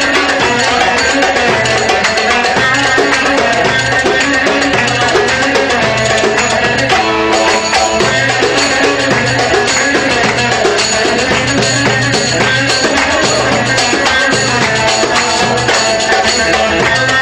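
Live Turkish folk dance music: an electric saz (bağlama) playing the melody over darbuka and tef frame drum keeping a steady, driving dance beat.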